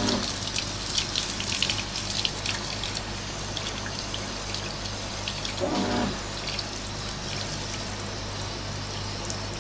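Hand-held shower head spraying water onto a dog's coat in a bathtub: a steady rush of water with splashes and drips.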